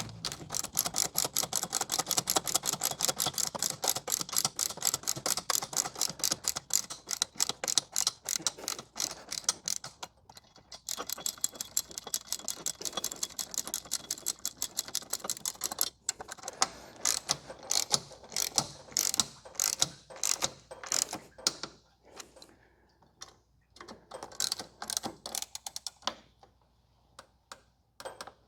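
Hand ratchet wrench with a 14 mm socket clicking rapidly as a flange bolt is run in, with a brief pause about ten seconds in. After about sixteen seconds the clicks come slower and more spread out, stopping shortly before the end.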